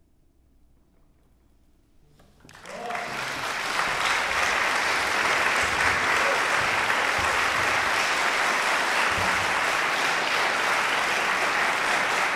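Near silence for about two and a half seconds after the final note, then an audience breaks into applause that builds quickly and carries on steadily.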